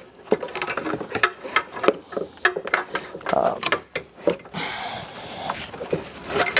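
Irregular clicks and light metallic knocks of a hand tool working bolts and clips loose on a car's dismantled front end.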